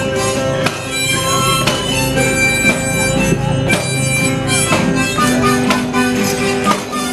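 Live acoustic guitar strummed in a steady rhythm, with a harmonica held in a neck rack playing held, reedy notes over it and a small pipe played alongside.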